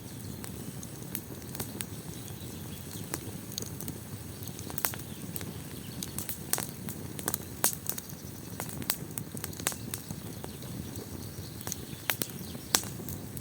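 Fire crackling in a fireplace: a steady low rush of flames with sharp pops scattered irregularly, a few of them louder.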